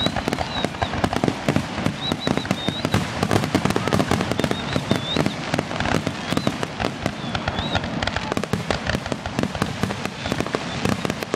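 Fireworks going off in a dense, continuous barrage: many bangs and crackles a second, with brief high whistling notes now and then.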